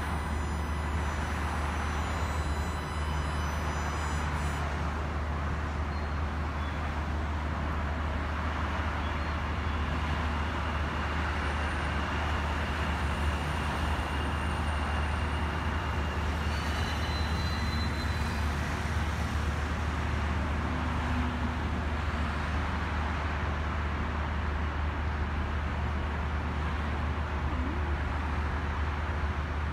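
Steady road traffic noise: a constant low rumble with tyre and engine hiss, no single vehicle standing out.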